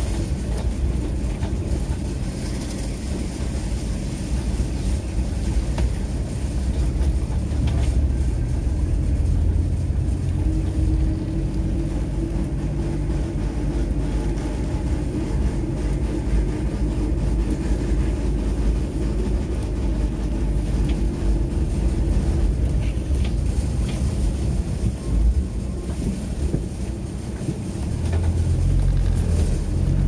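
Cab noise of a VW T4 Transporter van on the move: a steady engine and road rumble with scattered small rattles from the van. The low rumble grows heavier near the end as the van pulls harder.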